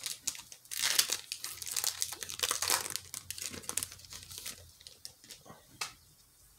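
Foil wrapper of a 2020 Panini Rookies & Stars football card pack crinkling and tearing as it is ripped open by hand. The crackle is densest in the first three seconds and dies away after about four and a half.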